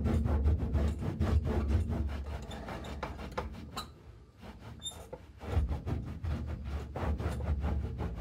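Cloth rag scrubbing back and forth over a 1974 Porsche 911's old textured undercoating in quick, scratchy rubbing strokes, as the underbody is cleaned and degreased before a fresh coat. The strokes let up for a moment about four seconds in, then resume.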